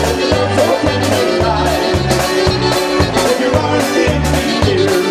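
Live polka band playing with a drum kit, low notes alternating on a brisk, even two-beat rhythm under the melody.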